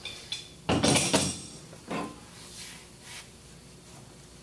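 Metal hand tools clattering on a work table as they are put down and handled: a loud metallic jangle lasting about half a second, about a second in, then a shorter knock about two seconds in, with a few light clicks around them.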